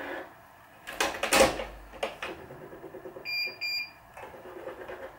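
Racquet stringing machine at work: a few sharp clicks and snaps about a second in as the string is handled and clamped, then a quick run of short high electronic beeps from the Wise 2086 tension head.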